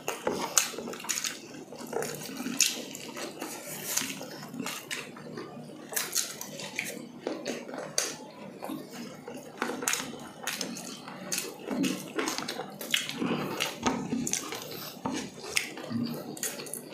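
Two people eating grilled chicken and rice with their hands: irregular chewing, mouth smacks and small clicks, with the picking and tearing of the chicken meat.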